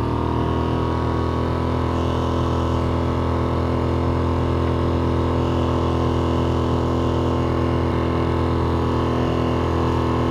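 Mariner 3.5 hp single-cylinder four-stroke outboard running steadily at wide-open throttle, pushing a loaded inflatable boat, with water rushing past the hull.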